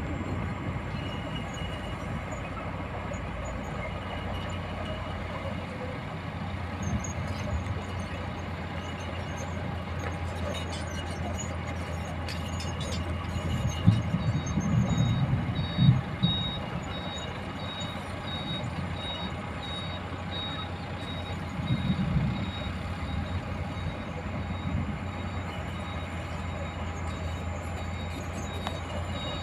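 Heavy diesel engines running steadily, with a reversing alarm beeping over them from about halfway through. A couple of louder engine rumbles come around the middle, and a shorter one a little later.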